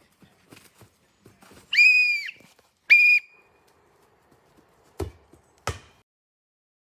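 A whistle blown twice, a long blast then a short one, followed by two sharp thuds of a plastic football being kicked, about two-thirds of a second apart.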